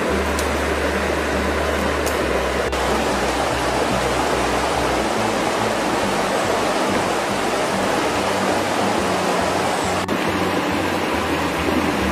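Steady rushing of river water, with a few faint clicks.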